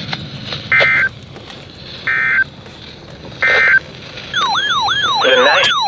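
Three short bursts of screechy two-tone data, about a second apart: the SAME end-of-message code closing a weather radio alert. About four seconds in, a loud electronic siren tone starts, sweeping up and down about three times a second.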